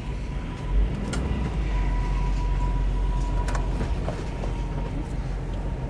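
2018 Coachmen Leprechaun Class C motorhome driving, heard from inside the cab: a steady low rumble of engine and road, with a couple of sharp knocks or rattles from the coach about a second in and again past the middle.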